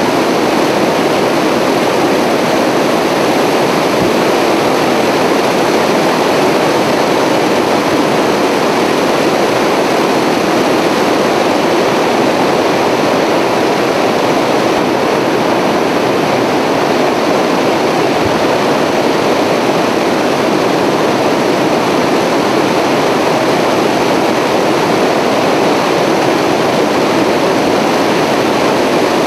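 Steady aircraft noise heard from on board: engines and rushing air making an even, unbroken roar.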